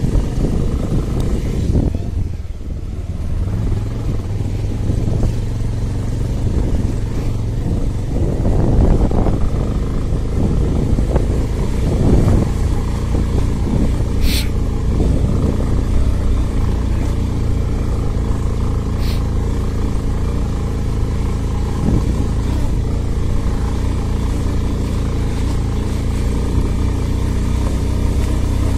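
A 150 cc motorcycle engine running steadily while the bike rides along a rough dirt road, with noise from the road and the ride. Two brief high sharp sounds come a little past the middle, about five seconds apart.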